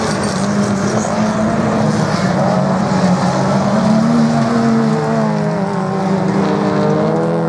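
Several small autocross race cars running hard through a dirt-track corner, their engines at high revs with the pitch wavering as they accelerate. A second engine note comes in about halfway through as more cars close up.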